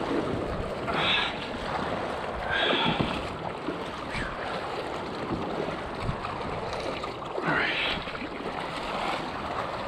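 Kayak paddle strokes splashing into ocean water, several splashes a second or more apart, over a steady wash of water along the hull.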